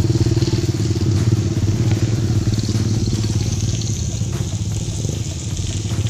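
Motorcycle engine running steadily.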